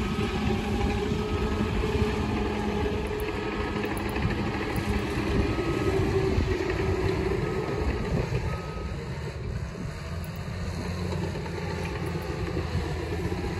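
Bulldozer's diesel engine running steadily nearby, with a back-up alarm beeping now and then as it works.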